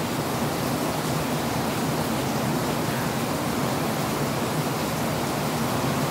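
Steady hiss of background noise, with no other sound standing out.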